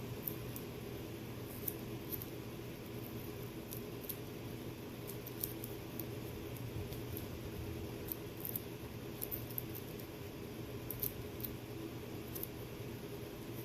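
A portable heater running with a steady low hum, with faint, irregular small clicks and rustles of handling over it.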